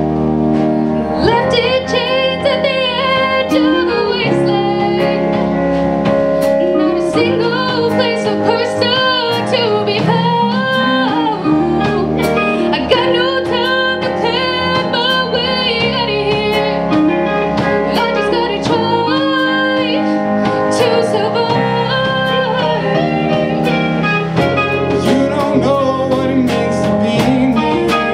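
Live alternative rock band playing: a woman sings the lead vocal, coming in about a second in, over electric guitar, bass, drums and keyboard.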